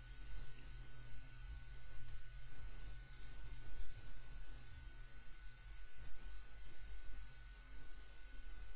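Computer mouse clicking several times at irregular intervals while blocks are dragged on screen, over a low steady hum.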